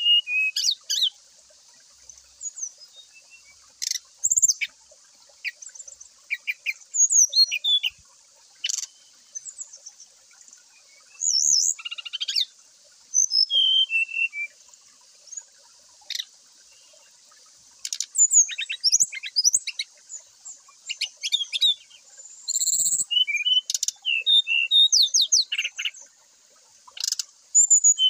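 Brown-chested jungle flycatcher (sikatan rimba dada coklat) singing: bursts of varied short chirps, clear whistled notes and fast trills, with short pauses between phrases.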